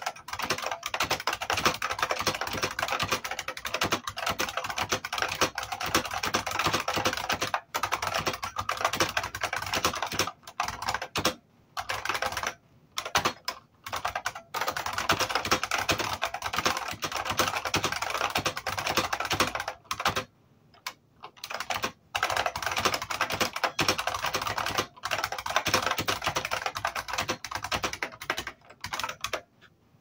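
Fast typing on an IBM Model M keyboard, its buckling-spring keys clicking in a dense run broken by a few short pauses, stopping near the end.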